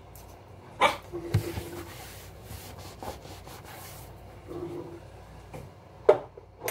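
A seasoning shaker jar shaken over a raw beef roast, with a light rattle and sprinkle. Two short, sharp, loud sounds come about a second in and again near the end.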